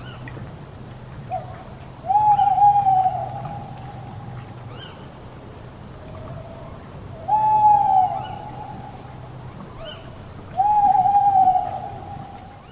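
Owl hooting: three long, loud hoots about two seconds in, past the middle and near the end. Each rises quickly, then holds and slowly falls. Shorter, quieter notes come before them, over a faint low steady hum.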